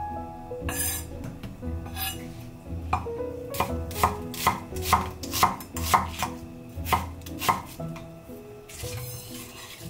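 Kitchen knife slicing an onion on a wooden cutting board. A steady run of knocks, about two a second, starts a few seconds in, over soft piano music.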